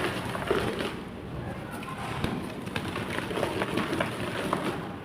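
Chalk clay blocks crumbling and being crushed: a dense run of small crunches and crackles, with sharp clicks scattered throughout.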